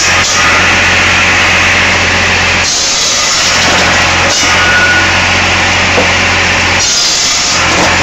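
Firewood saw machinery running: a steady motor hum under the harsh noise of a saw cutting logs. The noise briefly drops away three times.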